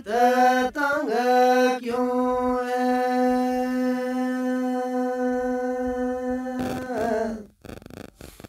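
A man singing a Gojari bait, unaccompanied: a few short phrases, then one long held note that fades out about seven and a half seconds in.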